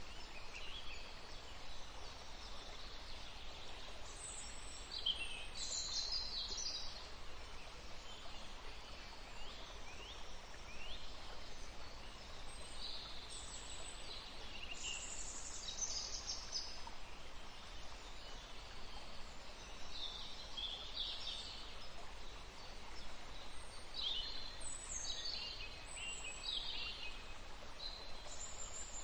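Songbirds chirping and trilling in clusters every few seconds over a steady background hiss.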